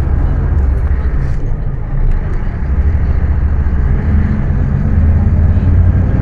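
Scania K310UA bus's rear-mounted diesel engine running under way: a steady low rumble that dips briefly about two seconds in and then builds again.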